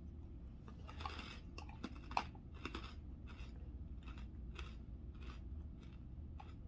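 Chewing of crunchy chicken salad: irregular soft crunches and mouth sounds, over a low steady hum.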